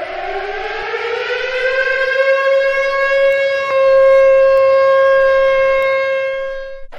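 Civil defense siren winding up, its pitch rising for about three seconds and then holding a steady wail, before cutting off abruptly near the end.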